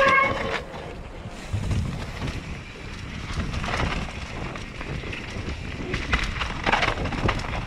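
Mountain bike descending a dirt forest trail at speed: wind rushing over the camera microphone, with the tyres on the dirt and the bike rattling and knocking over bumps, the knocks sharper near the end. A brief high squeal right at the start.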